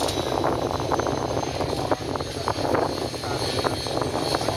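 Aircraft engine running steadily with a high turbine whine over a broad rumble.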